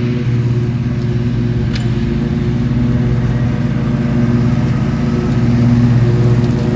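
Lawn mower engine running steadily, its hum swelling a little louder about six seconds in.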